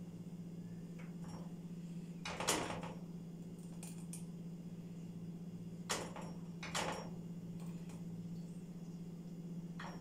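A silicone spoon stirring thick, nearly set strawberry jam in a small stainless steel pot, with four short knocks from the pot. The loudest knock comes about a third of the way in, two come close together past the middle and one at the very end, over a steady low hum.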